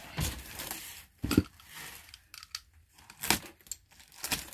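Cardboard box being pulled, scraped and cut with a box cutter: bursts of rustling and scraping with a few sharp knocks, the sharpest about a second and a half in, then a cluster around three seconds in.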